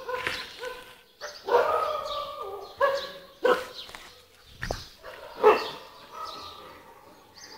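Puppies whining and yipping: a run of short, high, pitched calls, with a longer whine about a second and a half in and the loudest yelp about five and a half seconds in. A brief knock comes just before that yelp.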